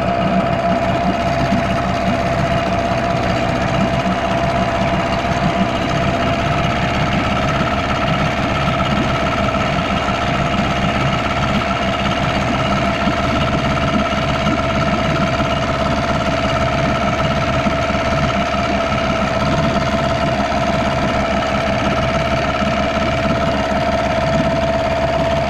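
Yamaha 6 hp two-stroke outboard motor running steadily at one speed. Its cooling-water tell-tale is blocked with fine gravelly grit, so little or no water is coming out.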